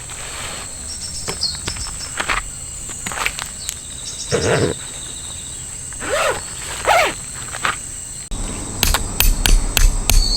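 Insects drone steadily in a high, even buzz, with a few short scuffs and rustles from someone moving about. About eight seconds in the sound changes abruptly to a quick run of sharp taps and knocks.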